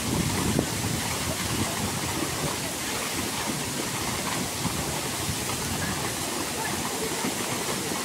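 Strong waterfall pouring down a rock face into a pool: a steady, dense rush of falling water.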